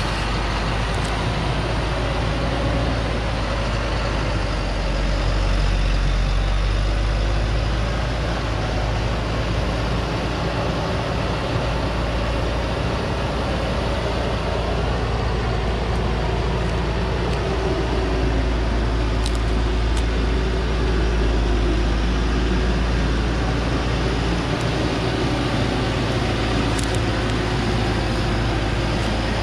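Engine of a heavily loaded log truck labouring steadily as it climbs a steep dirt slope under a full load of acacia logs.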